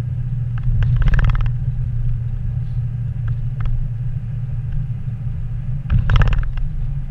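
Car engine and road noise heard from inside the moving car's cabin: a steady low rumble, with two brief louder sounds, one about a second in and one near the end.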